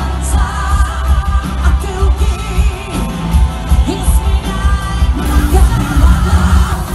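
Live pop-rock band playing, with a woman singing lead over electric guitars and heavy pulsing bass, recorded from the audience. The recording cuts to another part of the performance about five seconds in.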